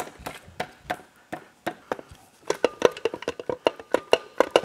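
Repeated sharp taps on a Polaris RZR 900 XP cylinder head to break it loose from the cylinder after the head bolts are out. The taps come about three a second at first, then quicker, several a second, over the second half, with a faint ring.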